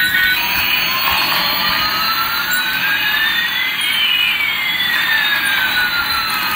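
Toy Airbus A380 airplane's electronic jet-engine sound effect: a steady jet hiss with one whine rising and another falling in pitch, the two crossing about four seconds in.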